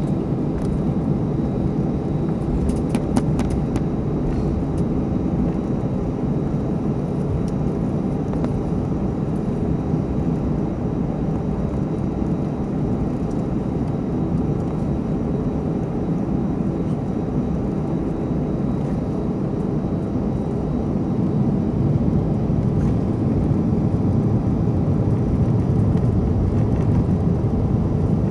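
Jet airliner engines running, a steady deep rumble that grows a little louder over the last several seconds.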